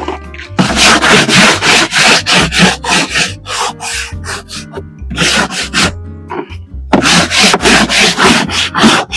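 A stiff brush scrubbing back and forth in quick rough strokes, about three to four a second, stopping briefly about two-thirds of the way through and then going on. Soft background music with low bass notes plays underneath.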